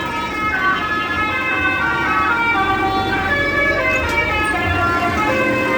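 Indonesian bus 'telolet' horn, a set of tuned air horns, playing a tune: several held notes sounding together and stepping up and down in pitch.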